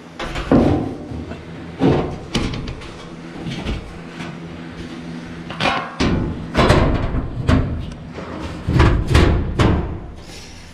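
Stamped steel trunk floor pan knocking and clattering against the car body as it is lowered and worked into place, in a string of irregular thumps and sheet-metal clanks, with a bunch of them from about six to nine seconds in.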